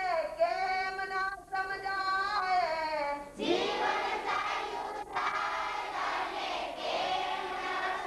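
A group of voices, children's and women's among them, singing a devotional hymn together in held, sliding melodic lines; about three and a half seconds in the singing grows fuller as more voices come in.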